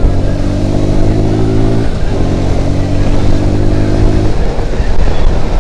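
Suzuki Gixxer SF 155's single-cylinder engine accelerating, its pitch climbing, dropping with an upshift about two seconds in, then climbing again before easing off near the end. Heavy wind rumble on the microphone underneath.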